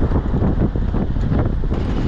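1999 Ford Ranger pickup driving along a dirt road: tyres rumbling and crunching over the gravel surface, with wind buffeting the microphone at the open cab window.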